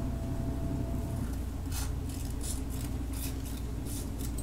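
Scissors snipping through a strip of sandpaper: a quick run of short cuts starting a little before halfway through.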